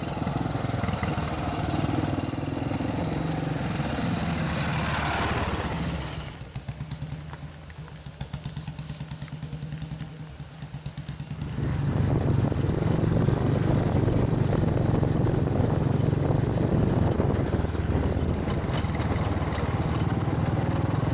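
Motorcycle engines running: one comes closer, getting louder over the first five seconds. The sound then drops to a quieter, pulsing engine for about five seconds. Just before halfway through, a louder engine cuts in and runs steadily to the end.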